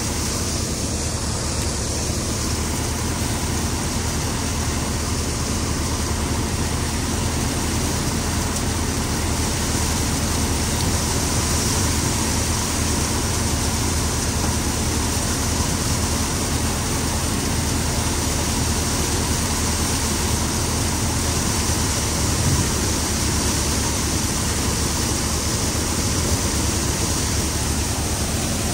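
Tractor-powered threshing machine running steadily under load while threshing dry chickpea plants: a constant loud drone of the engine together with the whirring of the thresher's drum and fan.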